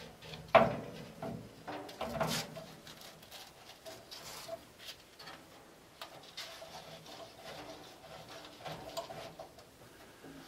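Copper pipe and fitting being handled and threaded by hand into the water heater's inlet: irregular metallic clicks, knocks and scrapes, the loudest knock about half a second in.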